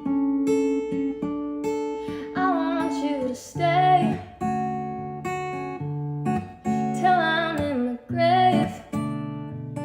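Acoustic guitar plucking steady chords, with a voice singing two gliding melodic phrases over it.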